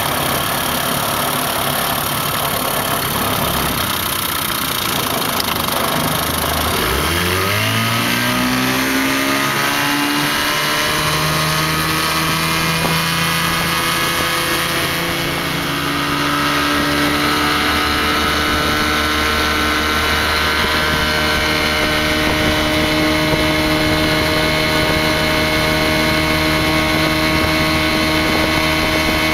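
1958 Mercury Mk28 two-stroke outboard motor running at idle, then revving up steeply about six seconds in as the throttle opens and the boat gets underway. It settles into steady running, steps up again in speed a few seconds later, and holds a steady high pitch from there on, with water rushing past the hull.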